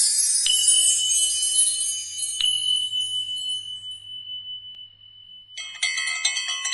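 Bright tinkling chimes that fade away, then a single high ringing tone held for a few seconds. Near the end a short, busier chiming jingle comes in.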